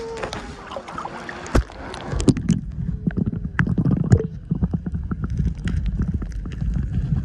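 Muffled underwater sound of a camera submerged in shallow sea water: a low rumble of moving water with many scattered clicks and pops, beginning about two seconds in.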